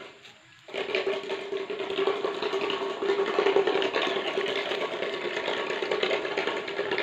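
A small motor running steadily with a fixed-pitch hum and a rough, noisy edge, coming in under a second in.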